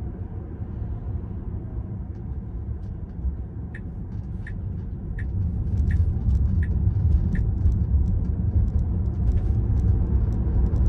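Road and tyre rumble heard inside the cabin of an electric Tesla Model 3 Performance, getting louder about five seconds in as the car picks up speed up a freeway on-ramp. A light tick repeats about every 0.7 seconds for a few seconds in the middle.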